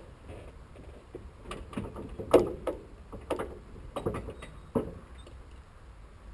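Irregular knocks, clunks and light rattles on the airframe of a parked Stampe SV.4 biplane with its engine stopped, as the people in its open cockpits move about. The knocks come in a cluster from about a second and a half in, the loudest about two and a half seconds in, over a low steady rumble.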